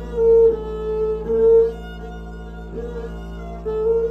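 A bowed, long-necked string instrument and a long bamboo flute play a slow melody of held notes, each about a second long, over a steady low drone.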